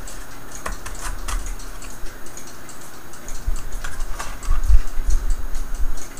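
Light, irregular clicks and knocks of a wooden cuckoo clock case and its loose parts and chains being handled and turned over, with a few dull low bumps about three to five seconds in.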